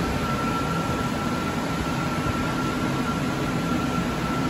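Smeg stainless-steel range hood's extractor fan running steadily: an even rush of air with a steady high whine from the fan motor.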